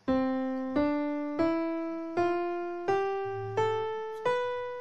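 Software piano instrument in Ableton playing back a MIDI-programmed ascending white-note scale: seven evenly spaced single notes climbing step by step, each struck and left to decay.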